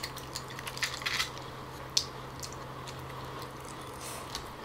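Close-up eating sounds: a few small clicks of chopsticks picking at a steamed boxfish, mostly in the first second or so, with soft squishy sounds of flesh being pulled apart, over a low steady hum.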